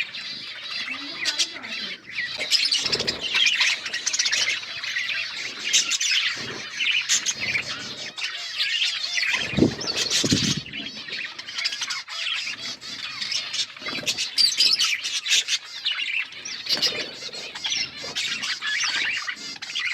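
A group of budgerigars chirping and chattering continuously, many overlapping high calls with squawks mixed in, and a couple of louder, deeper bursts about three and ten seconds in.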